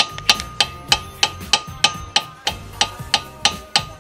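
Steel hammer striking the face of a 2016 Mazda 3's front brake rotor in a steady rhythm of about three blows a second, each blow with a short metallic ring. The blows are knocking loose a rotor that rust has seized onto the wheel hub.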